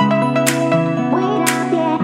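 Electronic pop music: held synth chords and bass, with a sharp snare-like drum hit twice, a second apart.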